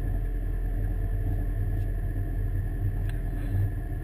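A car engine idling steadily, heard from inside the cabin as a low, even hum.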